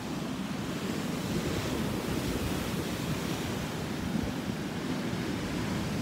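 Heavy surf breaking and washing in as white foam over a rocky shore, a steady, continuous rush of water noise, with wind buffeting the microphone.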